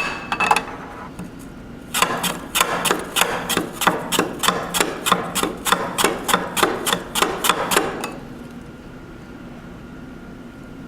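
A carrot being sliced on a handheld mandoline with a ceramic blade and plastic frame: a quick, even run of scraping strokes, about three or four a second, that starts about two seconds in and stops about six seconds later.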